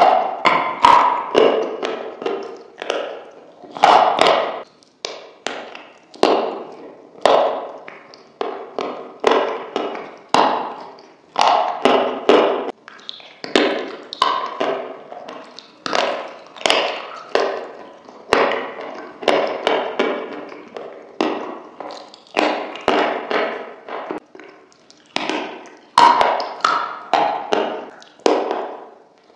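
Close-miked mouth sounds of eating a thick creamy dip: wet lip smacks and sticky mouth noises, about one a second, some with sharp clicks.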